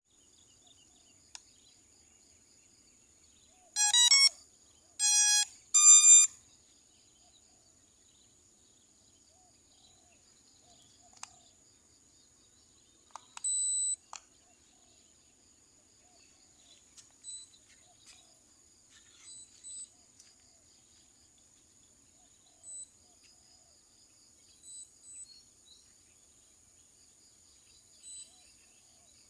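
A series of electronic beeps: three loud stepped tones about four to six seconds in and a shorter one near fourteen seconds. A faint steady high whine and scattered faint chirps run under them.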